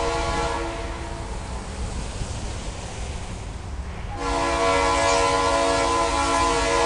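Freight diesel locomotive's multi-note air horn: one blast dies away just after the start, then after a few seconds of low rumble a loud blast starts about four seconds in and holds. The horn is sounding as the train nears a road crossing.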